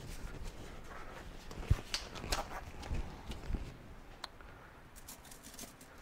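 Faint rustling and a few light clicks and knocks as blue disposable nitrile gloves are pulled on and worked over the hands.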